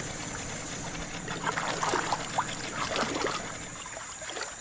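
Water splashing and trickling around a small boat on a creek, with a run of short sharp splashes through the middle seconds over a steady background hum.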